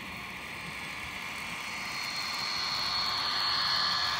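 H0 scale model freight train behind a model DSB MZ diesel locomotive running past on its track, with a steady high whine and rolling noise that get louder near the end as the wagons come close.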